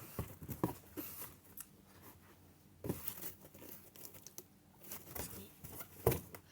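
Paper and cardboard being handled: irregular rustling and crinkling with scattered light taps and clicks.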